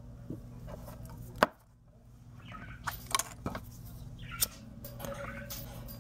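A few short, sharp clicks and light knocks as a handheld lighter is struck to light a glass jar candle. The loudest is a single click about a second and a half in, after which the background hum briefly drops out.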